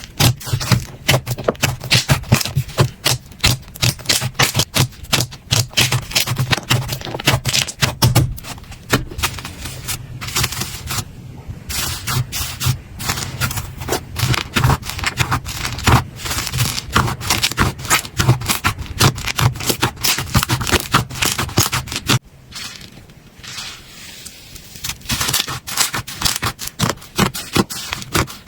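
Slime being squeezed, poked and stretched by hand, giving rapid crackling, clicking and popping. About two-thirds of the way through it drops to a quieter stretch for a few seconds, then the dense clicking resumes.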